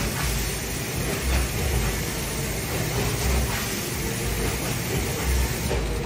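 Packaging-line conveyor machinery running: a steady mechanical rattle and rumble, with irregular low thuds every second or two.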